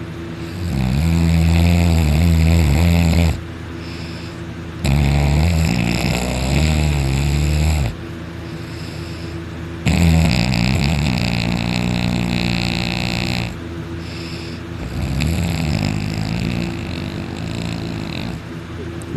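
A sleeping person snoring heavily: four long, rumbling snores a few seconds apart, the last one weaker.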